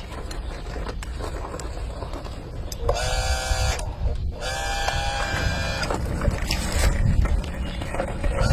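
Toy excavator truck's electric motor and low rumble running, with two bursts of steady electronic horn-like tones, one about three seconds in and a longer one just after.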